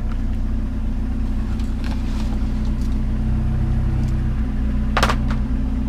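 Vehicle engine idling steadily, with one brief sharp clatter about five seconds in.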